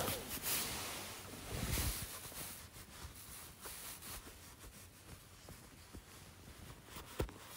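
Faint rustling of winter clothing and a fur-trimmed hood against a handheld phone, with a soft knock at the start, a louder rustle about two seconds in, and a couple of soft knocks near the end over low hiss.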